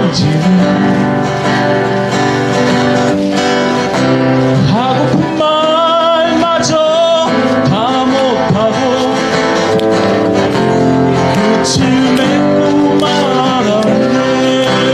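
Live band music outdoors: acoustic guitar playing under a melody line that carries vibrato, with a singing voice.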